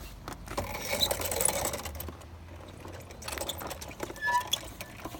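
Quad bike's motor running with a steady low hum as its tyre rolls over and crushes a small object on concrete, with crackling about a second in and scattered clicks.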